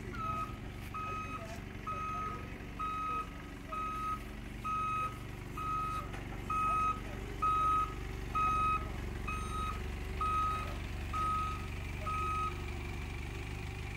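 Truck reversing alarm beeping about once a second, a single steady pitch, over the low hum of a running diesel engine; the beeping stops near the end.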